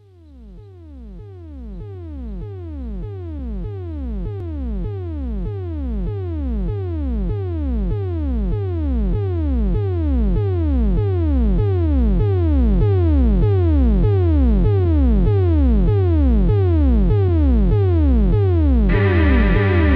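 Minimal electronic/industrial music intro: short synth pulses, each gliding down in pitch, repeat at an even rate and fade in gradually. Sustained synth chords join near the end.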